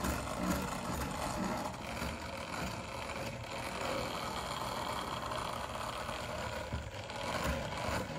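Clockwork mechanism of an early-1900s Roullet-Decamps fur-covered automaton cat running steadily, its machine noise meant to simulate a cat's purring.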